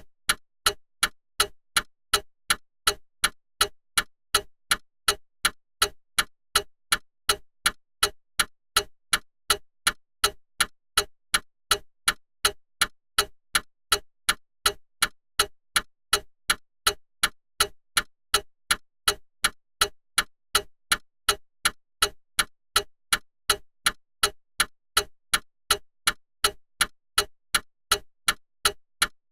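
Clock ticking in a steady, even rhythm: about two sharp loud ticks a second, each with a softer tick between.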